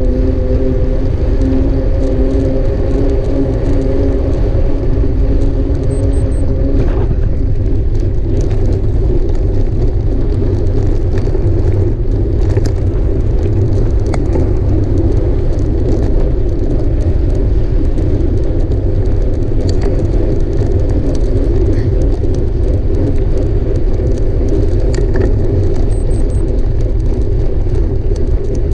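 Mountain bike being ridden hard, heard from a camera mounted on the rider or bike: steady wind and tyre rumble on the microphone, with scattered rattles and clicks from the bike over rough ground. A steady hum sits under it for the first several seconds.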